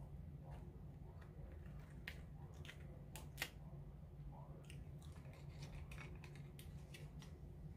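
Cooked lobster tail shell cracked and pulled apart by hand: scattered sharp cracks and clicks, the loudest about three and a half seconds in, over a steady low hum.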